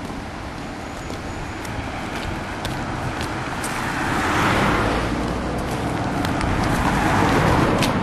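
Two cars passing close by on an asphalt road: tyre and engine noise swelling to a peak about halfway through, then a second car swelling again near the end. Short clicks of footsteps on the asphalt tick along underneath.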